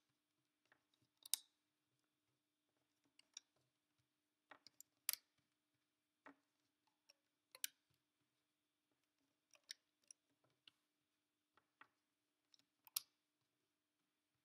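Scattered light clicks and ticks of small rubber bands being stretched and slipped onto the plastic pegs of a rubber-band loom, coming irregularly about one or two a second.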